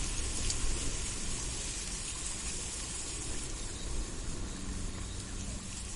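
A steady rushing noise, with a few faint ticks scattered through it.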